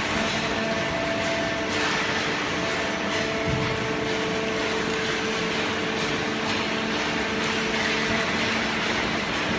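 Industrial automatic paper box baler running: a steady machine hum with several held tones over an even noise.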